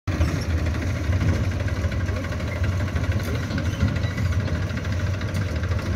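Massey Ferguson tractor's diesel engine running steadily at low revs with a deep, even throb.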